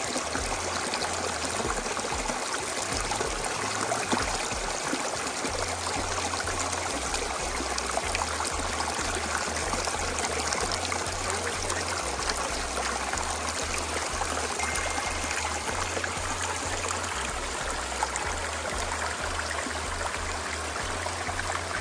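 Waterfall: water rushing steadily in an even, unbroken wash of noise.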